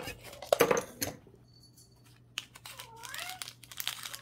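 Crinkling and sharp clicks from handling the slime tub and its packaging during the first second or so. About three seconds in a cat meows once, a high call that dips and rises in pitch.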